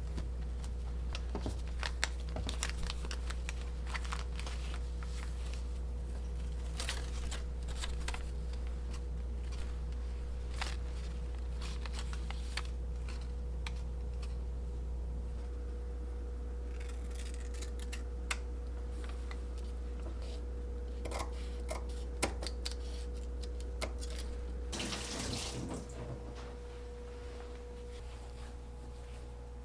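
Cotton kitchen napkins rustling as they are unfolded and handled on a counter, with scattered soft taps, over a steady low hum. About 25 seconds in comes a longer swish of cloth, after which the hum drops.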